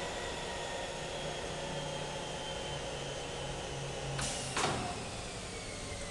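Visual Packaging USA film sealing machine running with a steady hum and a faint, slowly falling whine. About four seconds in, a short hiss ends in a clunk.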